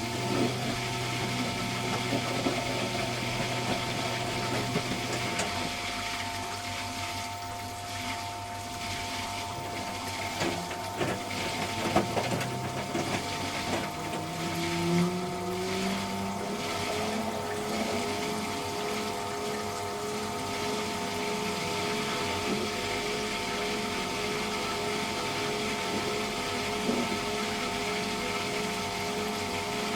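Electrolux Wascator W355H commercial washing machine running with a steady hum. About halfway through, a motor whine rises in pitch and then holds steady as the drum speeds up.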